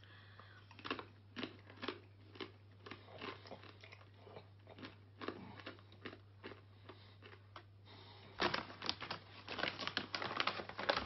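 Corn chip being crunched and chewed in the mouth, in short irregular crunches about twice a second. From about eight seconds in, a denser crinkling of the foil chip bag being handled.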